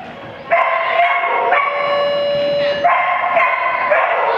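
A dog barking and yipping in a near-continuous string, starting abruptly about half a second in.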